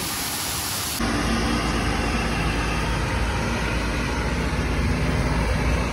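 Heavy diesel engine of farm machinery running steadily with a deep rumble, louder from about a second in.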